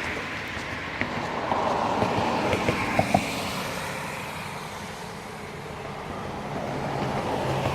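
Road traffic on a bridge: car tyres rolling over ridged concrete, the noise swelling and fading as vehicles pass, with a few short sharp knocks between about one and three seconds in.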